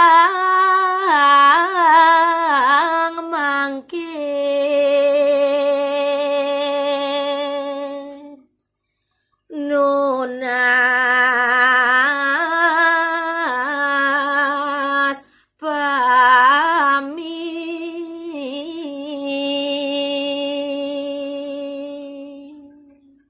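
A woman singing Balinese pupuh Ginada solo and unaccompanied, in long held notes with wavering ornaments. She breaks off for about a second near the middle and briefly again later, and the last held note fades away at the end.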